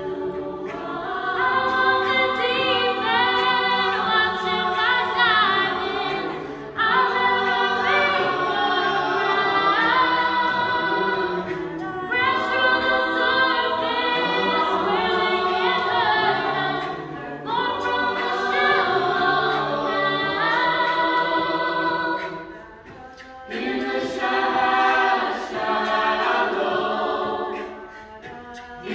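Mixed-voice a cappella choir singing in harmony, no instruments. It sings in sustained phrases with brief dips between them, the longest about two-thirds of the way through.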